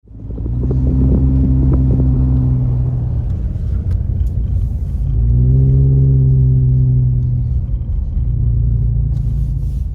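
Car engine and low road rumble heard from inside the cabin while driving through deep snow, fading in at the start; the engine note rises and swells about halfway through, then settles back.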